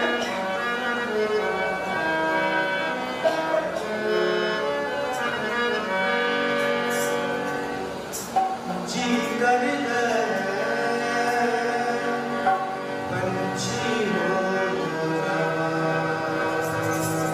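Harmonium playing a hymn melody in sustained reedy chords, with a man's voice joining in singing from about halfway through.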